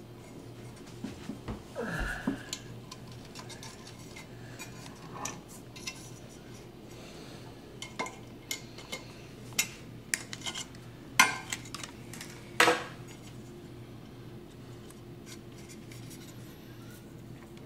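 Small clicks and light metallic clinks of handling a woofer and pushing wire connectors onto its terminals with pliers, with two sharper clicks a little past the middle, over a faint steady hum.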